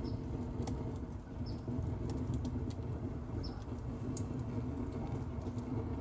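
Oak ember fire crackling, with scattered sharp pops over a steady low rumble.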